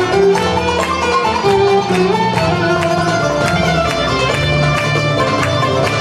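Turkish classical music ensemble playing a melody in makam Hüseyni, with violin over plucked strings such as a kanun.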